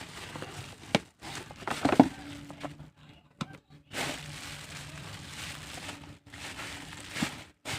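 Packaging being handled and opened: plastic and paper crinkling and rustling in bursts, with a few sharp clicks.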